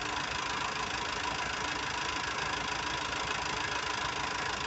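Engines idling in a steady, unbroken drone.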